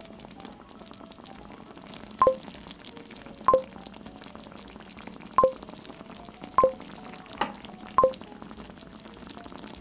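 Soy-sauce tteokbokki sauce simmering in the pan, a steady low bubbling hiss, with six sharp clicks that each ring briefly, irregularly about a second apart.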